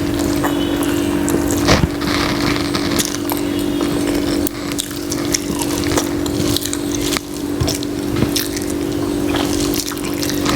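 Eating sounds: rice and egg curry being mixed and chewed, a run of short wet clicks and smacks. A steady hum runs underneath.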